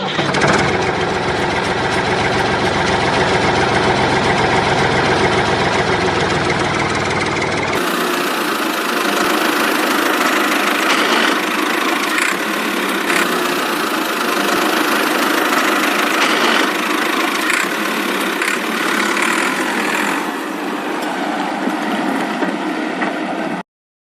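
A small motor running steadily with a busy mechanical clatter. About eight seconds in there is a sudden change where the low rumble drops out and the higher whirring carries on.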